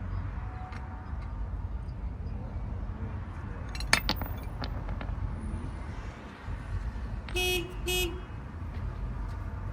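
Two short horn toots about half a second apart, over a steady low rumble, with one sharp knock a few seconds earlier that is the loudest sound.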